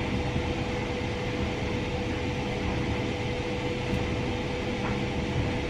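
Steady mechanical hum and hiss of room noise, with a faint steady tone running through it.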